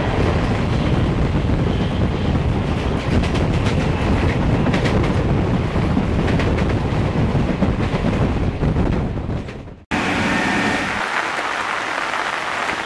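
Rushing running noise and wheel-on-rail clatter from an Indian express train at speed, heard at an open coach doorway with another train's coaches running alongside on the next track. Wind buffets the microphone and rail clicks come through now and then. It cuts off suddenly about ten seconds in.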